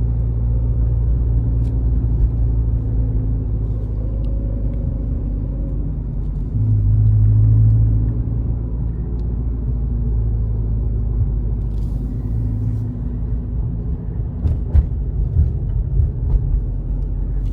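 Car engine and road rumble while driving. The engine note swells louder for about a second and a half around seven seconds in, and a few light knocks come near the end.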